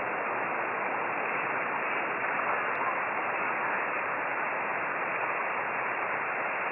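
Steady hiss of band noise from a shortwave receiver in upper-sideband mode on the 10-metre amateur band, with no station coming through.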